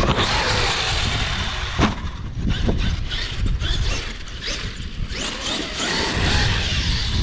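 Traxxas X-Maxx RC truck's brushless electric motor whining as it revs in short rising bursts, with drivetrain and tyre noise, and wind buffeting the microphone with a low rumble.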